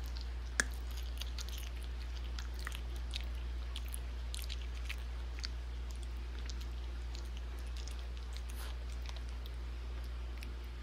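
Two-toed sloth chewing blackberries: irregular small clicks and smacks from its mouth, with a sharper click about half a second in, over a steady low hum.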